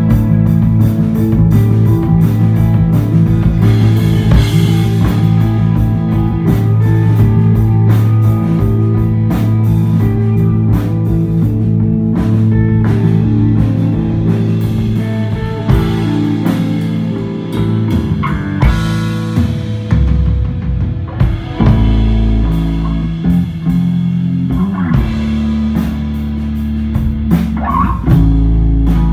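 Instrumental desert rock played live by a band: electric guitar over bass guitar and drum kit, with cymbals ringing.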